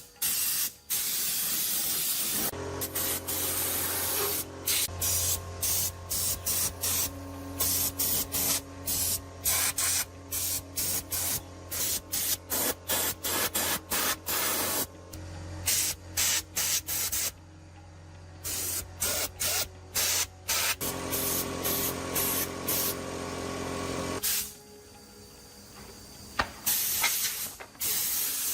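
Compressed air hissing from a nozzle in many short on-off bursts, as a trigger is pulled and released. A motor hums steadily under it and stops about 24 seconds in.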